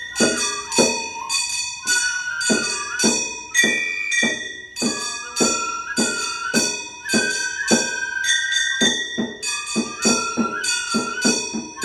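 Gion bayashi float music: a bamboo flute playing held notes with small slides, over quick ringing strikes of small brass hand gongs at about three a second.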